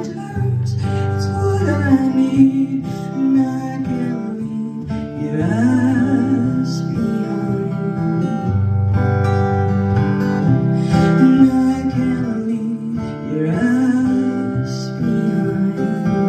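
Acoustic guitar played live in a solo performance, strummed chords ringing on.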